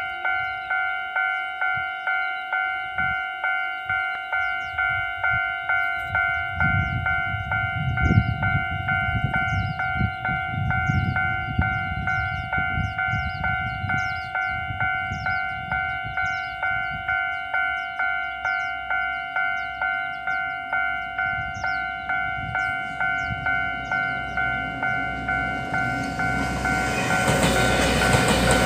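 Railway level-crossing warning bell ringing on and on, a steady ding about five times every three seconds. A low rumble swells and fades partway through, and in the last few seconds the noise of the diesel train reaching the crossing builds up under the bell.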